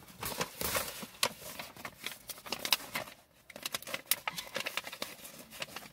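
Crinkling and crackling of a plastic-covered diamond painting canvas being handled and unrolled by hand, in irregular crackles and taps.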